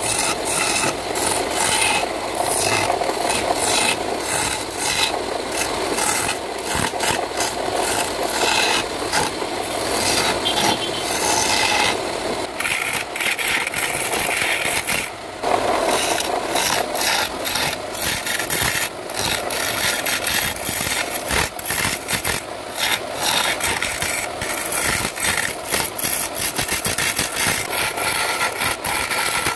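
Hand-held chisel cutting into a spinning wooden blank on a wood lathe: a continuous scraping, shaving sound with frequent rattling ticks, easing off briefly around the middle.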